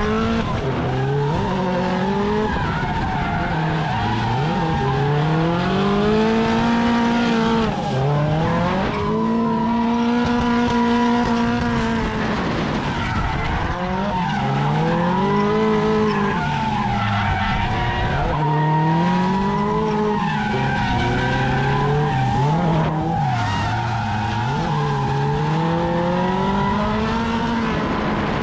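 Drift car engine revving up and down over and over as the car slides through the corners, with tire squeal throughout.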